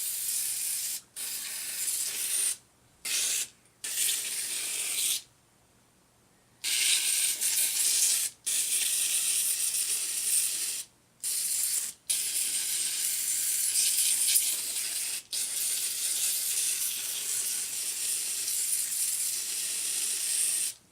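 Aerosol can of Nu-Calgon Evap Foam no-rinse coil cleaner spraying foam into refrigerator coils in long hissing bursts. The bursts stop briefly several times, and there is a longer pause about five seconds in.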